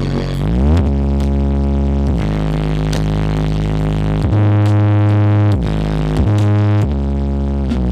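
Loud electronic dance music played through a large 'sound horeg' sound system. Deep bass notes are held for a second or more at a time, with pitch sweeps gliding down and up between them.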